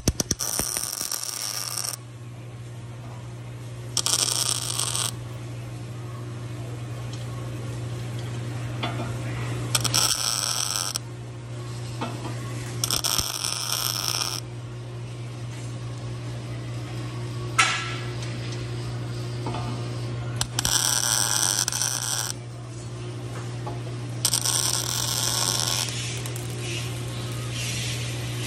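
Wire-feed welder striking six short tack welds, each arc burst lasting one to two seconds with pauses between, as weld nuts are tacked onto steel channel. A steady low hum runs underneath.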